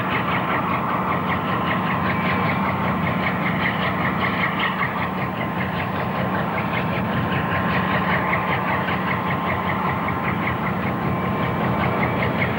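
Iron-ore train being loaded as it moves slowly through a tunnel under the stockpile, with ore pouring into the wagons. A steady engine rumble, a fast even clatter and a faint steady high whine.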